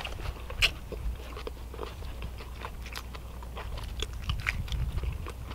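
People chewing mouthfuls of burger, with scattered wet mouth clicks and smacks and one sharper click about half a second in.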